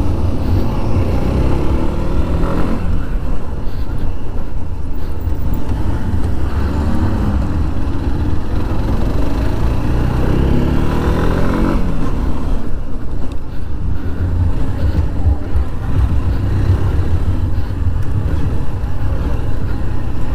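Motorcycle engine ridden through a tight course, rising in pitch under throttle several times and dropping back between, over a strong low wind rumble on the microphone.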